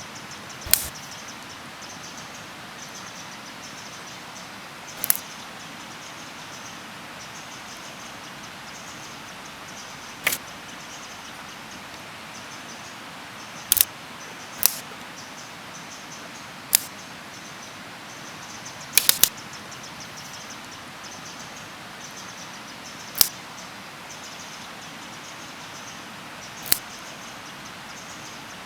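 About ten sharp knocks or pops at irregular intervals, a few seconds apart, with a quick run of three about two thirds of the way in, over a steady chirring of insects.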